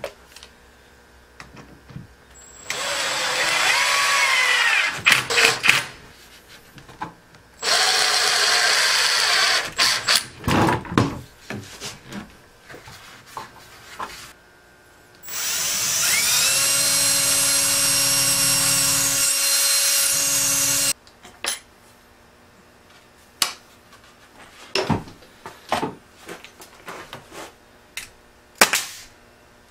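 Milwaukee cordless drill boring into aromatic cedar boards in three runs, two of a few seconds and a last one of about six seconds, the motor's pitch sagging as the bit bites in. Scattered knocks of handling between runs, and a sharp crack near the end.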